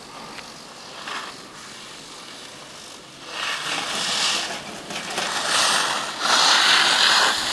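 Skis scraping and carving over packed snow, a hiss that comes in swells with each turn and grows louder as the skier nears, loudest near the end.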